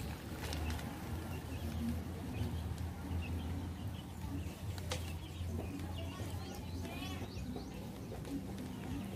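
Scattered short bird calls, among them chickens, over a steady low hum, with a quick run of calls about seven seconds in.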